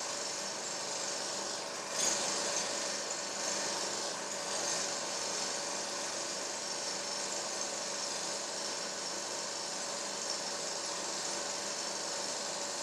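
Film projector running: a steady mechanical whir with hiss and a constant hum, with a brief louder scratchy rasp about two seconds in.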